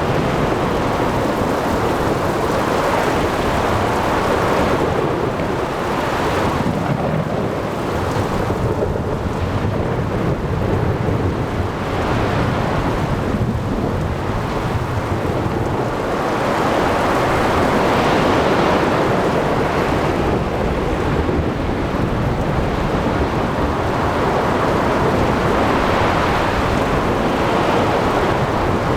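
Sea thunderstorm: thunder rumbling low and steadily under the rush of rain, wind and breaking waves. The whole storm swells and eases several times, loudest about two-thirds of the way through.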